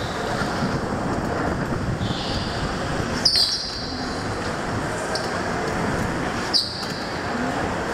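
Indoor go-kart driving through corners, heard onboard: a steady rush of motor and tyre noise, with short high tyre squeals and two sharp knocks, one about three seconds in and one near the end.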